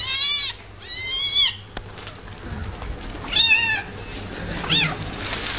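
A cat meowing four times, high-pitched calls that rise and fall in pitch, the last one short.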